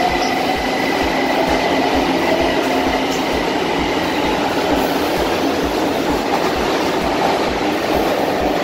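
São Paulo Metro train pulling out along the platform, its cars rolling past with a rhythmic clatter of wheels over the rails and a faint steady motor whine.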